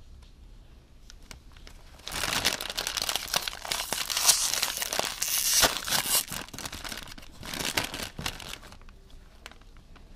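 A Doritos chip bag of thin foil-lined plastic crinkling loudly as it is handled and pulled open by hand. After a couple of seconds of light rustles comes a dense crackling rush, then a shorter burst of crinkling about eight seconds in, fading to a few soft rustles.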